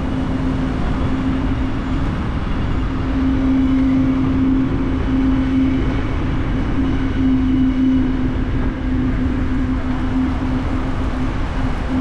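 Steady road and engine noise of a car driving, with a low hum that fades out and comes back several times.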